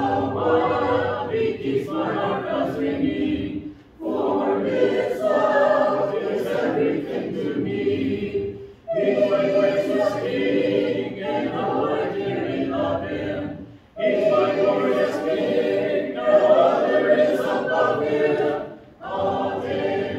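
Congregation singing a hymn a cappella, many voices together without instruments, in phrases broken by short breaths about every five seconds.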